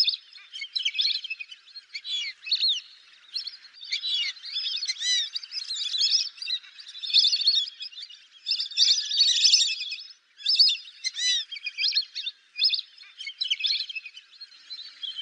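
Fulvous whistling ducks calling as a flock: many overlapping high, squeaky whistled notes that rise and fall, going on without a break.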